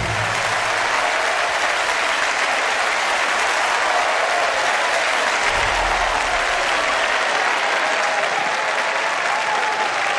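Theatre audience applauding steadily, a dense clapping throughout.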